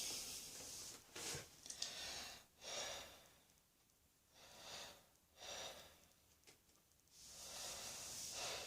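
A person breathing audibly in a faint run of about seven separate breaths, some short and some drawn out, with no coughing yet.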